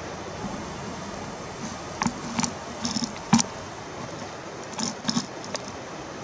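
Steady rush of a flowing river with wind on the microphone, broken by a handful of short clicks and crunches, about seven in all, between about two and six seconds in.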